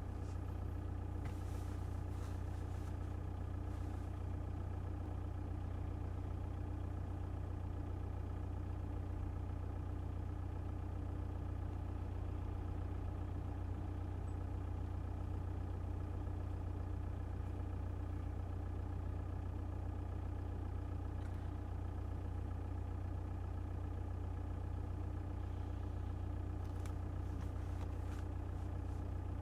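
1.9 TDI four-cylinder turbodiesel engine idling steadily with a knock from the engine.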